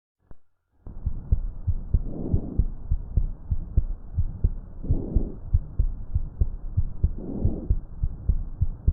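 Stethoscope recording of normal lung sounds: three soft breaths swell and fade, about two and a half seconds apart, over heartbeats thumping steadily throughout. It starts about a second in.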